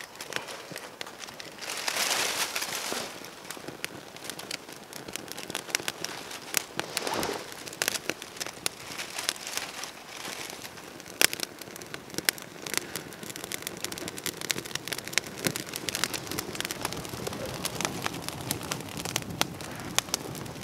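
Dry leaves rustling as they are heaped onto a small flame, with a rush of rustling about two seconds in and again around seven seconds. Through it all the leaf tinder crackles and pops in many sharp snaps as it catches and burns up into a fire.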